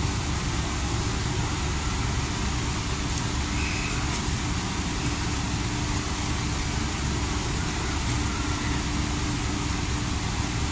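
Steady low engine rumble with a constant hum, as from idling machinery, and a few faint ticks.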